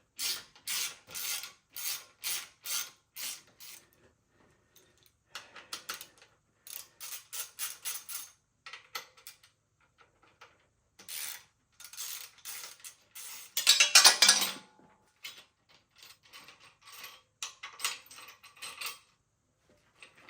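Hand ratchet wrench clicking in runs of quick back-and-forth strokes, about two to three a second, as bolts are worked loose on a Razor MX650 electric dirt bike. There are pauses between runs, and one louder, longer rattling burst about fourteen seconds in.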